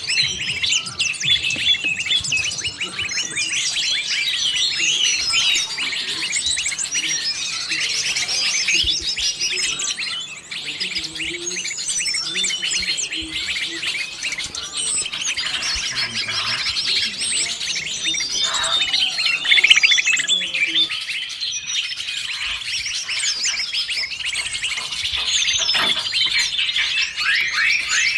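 A dense, unbroken chorus of many small birds chirping, trilling and calling over one another, a 'noisy birds' lure mix with greater green leafbird calls, used to draw wild birds in.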